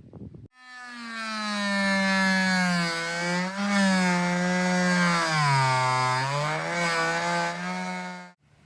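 Power saw cutting into a boat's wooden board. It starts about half a second in and runs with a steady buzzing pitch that sags as the blade bites, mostly around the middle, then stops abruptly near the end.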